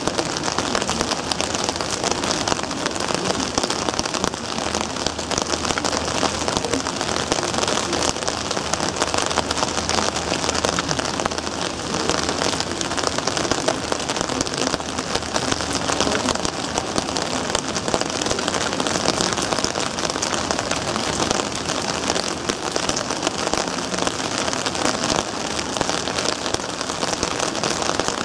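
Rain pattering steadily on a surface, an even dense crackle with no breaks.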